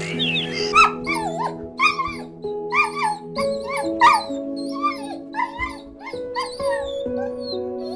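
An animal's short, whining, yelping calls, repeated about one or two a second with sliding pitch, over soft background music with sustained notes.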